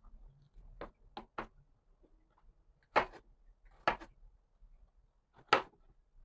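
Knife cutting bitter melon and pieces knocking on a wooden chopping board: three small quick clicks about a second in, then three louder, sharper knocks in the second half.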